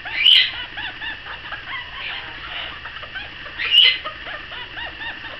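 Red-bellied parrot making a run of soft, quickly repeated clucking calls, broken by two louder, sharper calls, one just after the start and one near the end.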